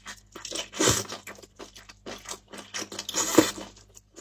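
Close-up eating sounds of braised sheep's-head meat being bitten, torn and chewed: many short, irregular mouth and tearing sounds, louder about a second in and again just past three seconds.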